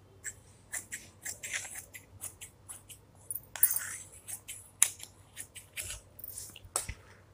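Large dressmaking shears cutting through suit fabric: a steady run of short snips, two to three a second, with a brief rustle near the middle.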